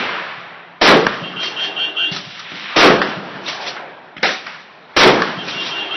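Mossberg 590A1 12-gauge pump-action shotgun fired three times, about two seconds apart. Each shot is a sharp blast followed by a fading echo.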